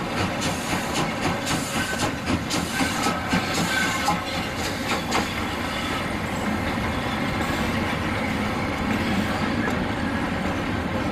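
Convoy of DR class 50 steam locomotives rolling slowly past on yard track. Wheels clack over the rail joints with a run of sharp clicks in the first half, then settle into a steady rumble.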